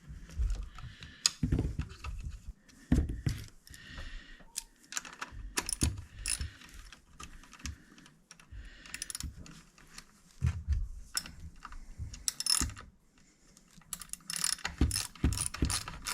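Chainsaw parts being handled and fitted: irregular metal clicks and knocks, turning into a fast run of ratchet-like clicking near the end.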